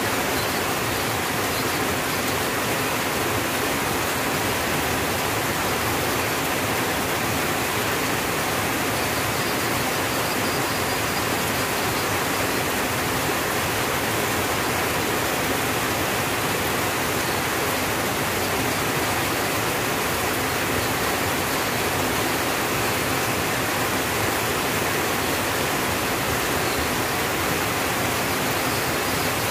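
Steady rain falling on a tin roof: an even hiss with no single drops standing out.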